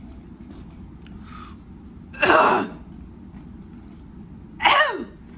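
A woman's two loud, breathy gasps at the burn of a very hot wing sauce, one about two seconds in and a shorter one near the end that slides down in pitch.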